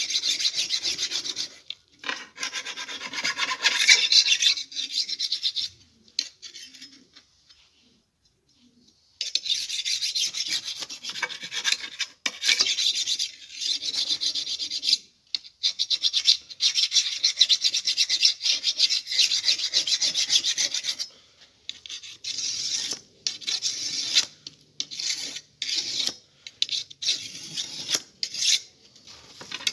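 A flat file rasping in rapid strokes along the steel rails of a Stihl chainsaw guide bar, dressing the bar edges. It stops for a few seconds, runs long for about twelve seconds, then goes on in shorter strokes.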